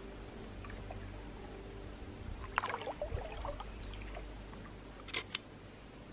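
Water sloshing and splashing around a wooden canoe as it is paddled, with a run of splashes about halfway through and two sharp knocks near the end, over a low steady hum.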